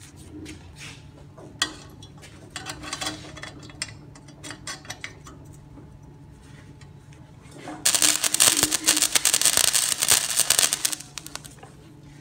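Wire-feed welder arcing on a rusted exhaust pipe joint. A few short crackling bursts come around three to five seconds in, then a steady, loud crackling run of about three seconds near the end as a bead is laid.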